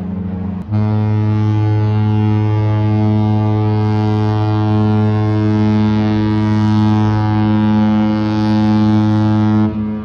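Cruise ship horn sounding one long, low, steady blast. It starts about a second in, right after a different horn note cuts off, and stops shortly before the end.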